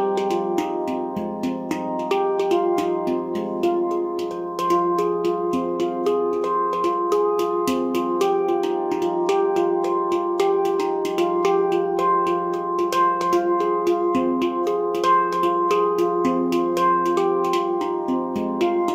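Handpan in F low Pygmy by Nimo Sounds, played by hand in an improvisation: a quick, even run of finger strikes, each note ringing on and blending into the next.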